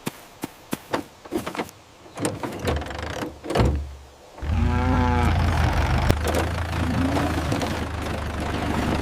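Cartoon sound effects: a quick series of clicks, then a vehicle engine rumbling low and steady from about four and a half seconds in. A brief pitched call sounds as the engine comes up.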